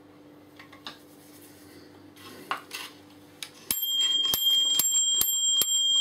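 Bell of an analogue microwave oven's mechanical clockwork timer, struck rapidly over and over from about four seconds in, so the dings ring on into each other, after a few light handling knocks.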